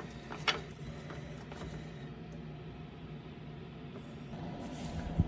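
Faint steady low hum of room tone, with one light sharp click of a hand tool about half a second in.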